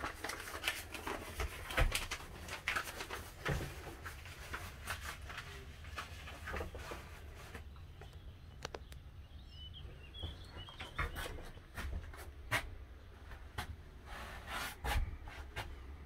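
Scattered light clicks and knocks from someone moving about and handling the camera in a boat's wheelhouse, over a low rumble.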